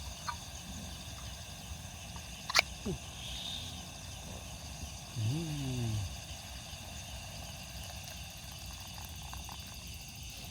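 Steady high-pitched chorus of night insects (crickets). A single sharp click comes about two and a half seconds in, and a brief low voice-like sound rises and falls around five seconds in.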